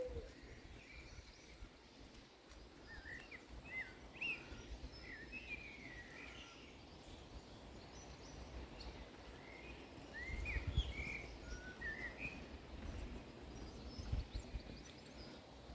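Quiet outdoor ambience with small birds chirping, short calls that glide up and down, scattered throughout. A low rumble swells about ten seconds in and again briefly near the end.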